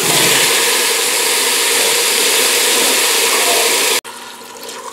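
Loud, steady hissing sizzle as wet cauliflower florets drop into a hot pot of sautéed onions in oil. It cuts off abruptly about four seconds in, then broth and water pour and splash quietly into the pot.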